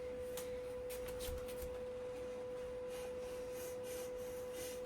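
Rotimatic Next roti machine running with a steady, even hum on one clear tone, as it warms up, with faint small ticks over it.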